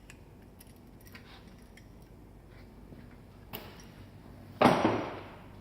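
Bicycle chain and chain tool being handled after the chain is shortened: faint ticks, a sharp click a little past the middle, then a loud clatter near the end that dies away within a second.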